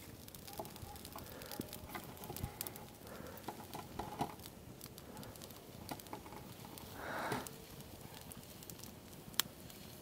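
Small campfire of freshly added dry branches crackling faintly, with scattered small pops and one sharp pop near the end. A brief rustle comes about seven seconds in.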